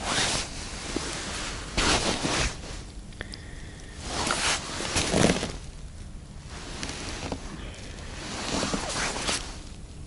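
Snow crunching and winter clothing rustling in about four short bursts as an ice angler shifts and kneels beside his ice hole.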